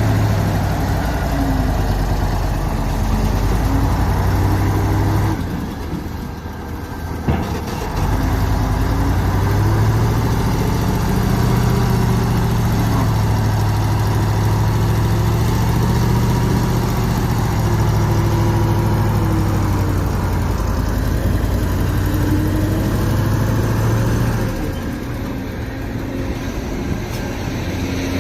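Heavy diesel machinery engine running steadily, its pitch wandering slightly. The sound drops for a couple of seconds about six seconds in, then comes back after a single click, and it quietens again near the end.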